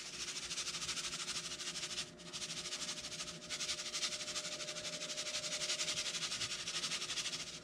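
Italian breadcrumbs shaken from a canister onto fish fillets in a baking dish: a fine, rapid hissing patter of falling crumbs that pauses briefly twice.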